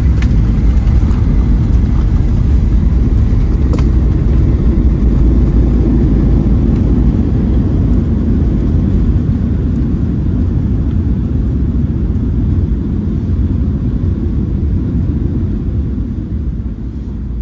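Airliner cabin noise heard from a window seat: a loud, steady low rumble of the engines and the wheels rolling along the runway at speed, easing off over the last few seconds. There is a single faint click about four seconds in.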